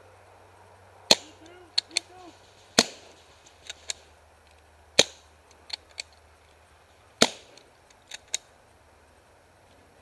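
CCI Phantom pump-action paintball marker firing four loud single shots about two seconds apart, the spacing of a player pumping between shots. Fainter cracks sound in between.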